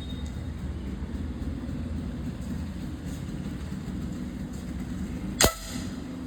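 A single sharp shot from a 10 m air pistol about five seconds in, with a brief ringing after it, over a steady low rumble in the background.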